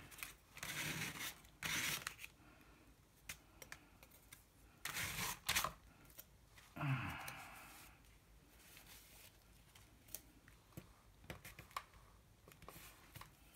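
Hands rubbing and pressing a freshly glued cardstock page flat on a plastic sheet: short bursts of rustling and rubbing, with a few light taps in between.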